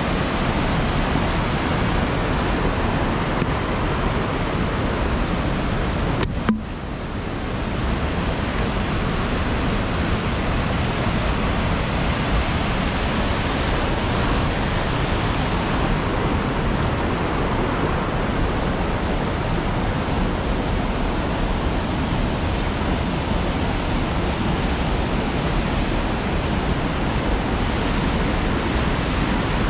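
Fast whitewater of the Big Almaty River rushing down a concrete channel and over low weirs, a steady even rush. A single brief knock about six seconds in, followed by a short dip in the level.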